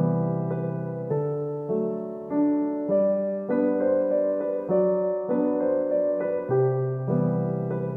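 Background piano music: a steady tune with a new note or chord struck about every half second.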